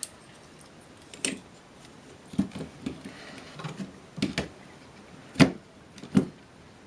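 Scattered metal clicks and knocks as a heavy plug-in electronics module is pushed and wiggled back into its slot in a metal equipment chassis; the loudest knock comes about five and a half seconds in.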